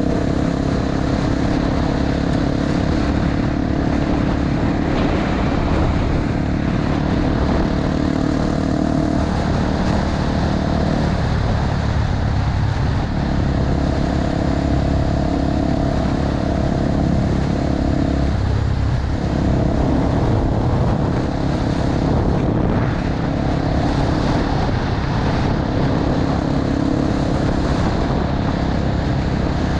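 Honda XR250 Tornado's single-cylinder four-stroke engine running steadily while riding, heard from an on-bike camera, with a wash of road noise underneath. The engine note eases off briefly twice, about a third and two thirds of the way through.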